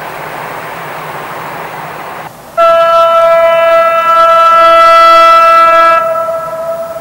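A diesel locomotive's horn, one long blast of about three and a half seconds, loud and steady, dying away at the end. Before it comes a couple of seconds of steady rushing noise.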